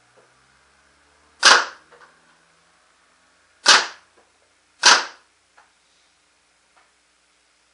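Proto Matrix Rail (PMR) 2011 paintball marker, fitted with a 360 QEV, firing three single shots on compressed air. Each shot is a sharp pop with a short echo: the first comes about a second and a half in, the next two seconds later and the last a second after that. Much fainter small knocks follow some of the shots.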